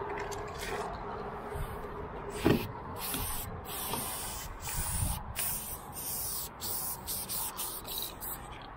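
Aerosol spray-paint can spraying in short hissing bursts that start and stop again and again as a graffiti outline is painted. About two and a half seconds in there is one sharp knock.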